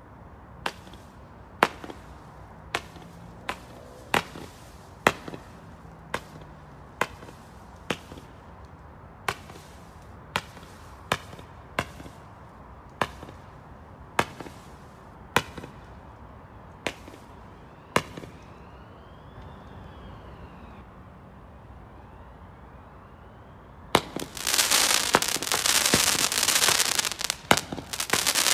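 Skycrafter Thermo Shock firework firing: about twenty single sharp bangs, roughly one a second, then a pause, and near the end a dense, loud crackling barrage starts.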